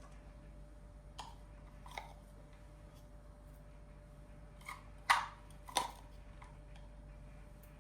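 A few short, light knocks and clicks of objects being handled, the loudest about five seconds in, over a faint steady hum.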